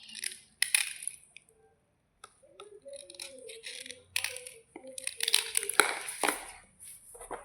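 Brittle white slate bars crunching and snapping in irregular bursts, with the loudest crunches under a second in and again around five to six seconds in.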